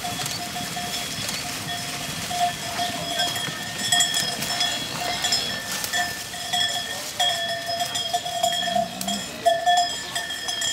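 A cowbell on one of the Salers cattle ringing without pause as the herd runs, its tone swelling and fading unevenly, with scattered knocks.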